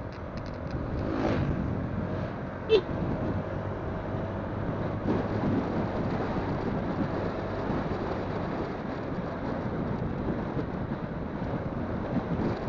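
Wind buffeting a phone microphone on a moving motorcycle, over steady engine and road noise. One brief, sharp sound stands out about three seconds in.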